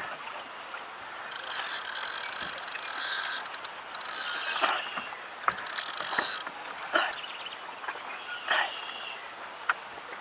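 Fishing reel clicking and whirring as a hooked fish is fought and reeled in, in uneven stretches with scattered clicks.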